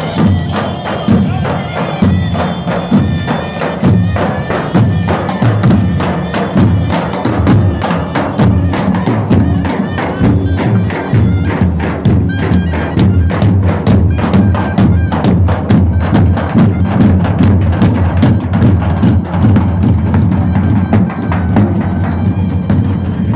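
A marching troupe beating large double-headed drums with sticks in a loud, fast, steady rhythm, many drums striking together.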